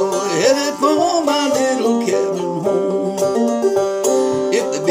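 Homemade banjo with a frying-pan body and a groundhog-hide head, played as a solo instrument: a busy run of plucked notes.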